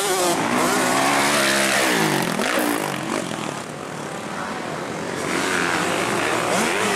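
Motocross bikes' engines revving hard as they pass on the track, the pitch dropping and then climbing again about two seconds in. The engine sound eases somewhat in the middle and builds again near the end.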